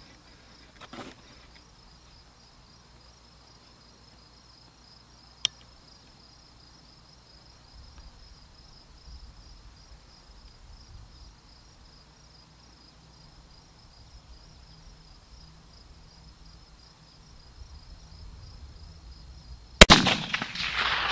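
A single rifle shot from a Browning X-Bolt bolt-action rifle in .300 Winchester Short Magnum near the end: a sharp, loud crack followed by a long echo trailing away. Before it there is a long wait with one small sharp click about five seconds in.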